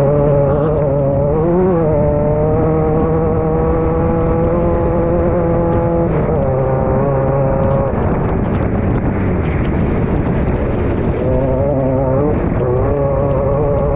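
Engine of a class 9 off-road race car heard from inside the car, running hard. The pitch dips and rises with the throttle, steps abruptly about six seconds in, turns rougher for a few seconds, and climbs again near the end.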